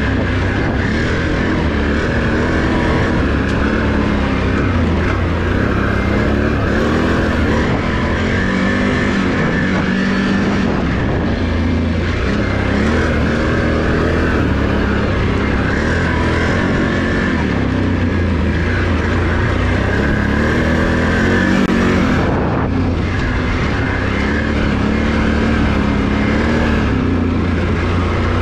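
Can-Am Renegade ATV's Rotax V-twin engine running under way on a trail, its revs rising and falling again and again as the throttle is worked.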